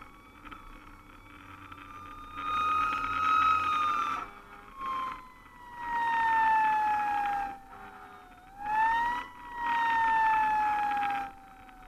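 Fire engine's siren on a slow wail, its pitch rising and falling in long sweeps, with loud horn blasts sounded over it: three long blasts with short ones between.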